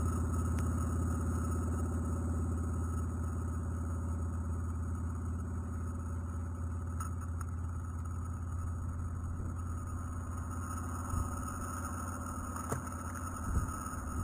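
A motor idling with a steady low hum that fades slightly over time, with a few light knocks near the end.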